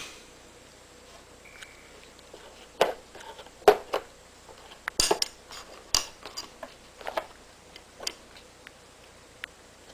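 Loose brass-plated .22 Long Rifle cartridges clinking and rattling against each other in their cardboard box as cats paw and bite at them, in scattered sharp clicks.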